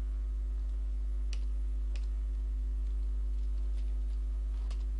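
A few scattered computer keyboard keystrokes over a steady low hum.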